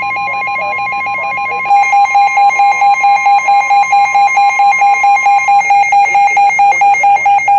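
NOAA Weather Radio's steady 1050 Hz warning alarm tone plays over the station's announcer voice and stops a little past five seconds in. Under two seconds in, a louder pulsing electronic alarm beep starts, about three and a half beeps a second, and keeps going.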